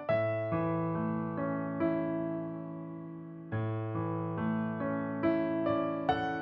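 Background music: a soft electric piano playing slow sustained chords, changing every second or so.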